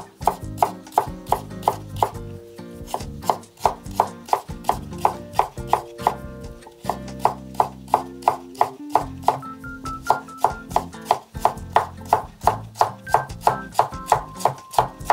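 Kitchen knife julienning fresh ginger on a cutting board: a steady run of quick chopping strokes, about three to four a second, with soft background music underneath.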